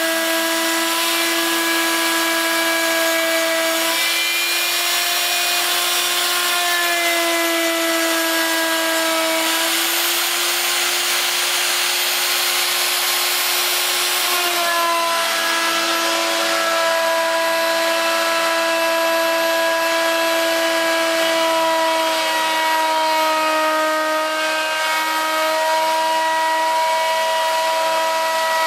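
Spindle motor of a homemade CNC router running with a steady pitched whine while its bit mills a groove in a wooden board, over the hiss of the cut; the pitch shifts slightly a few times as the cutting load changes.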